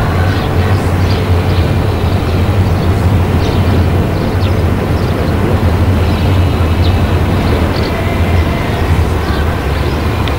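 A vehicle's engine running steadily while driving, a deep even hum under a rough rumble, easing slightly near the end.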